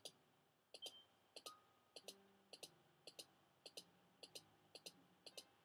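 Mouse clicks in quick press-and-release pairs, about twice a second, triggering a Max/MSP patch. Each one sets off a faint, short piano-like note of random pitch, some very high, some low.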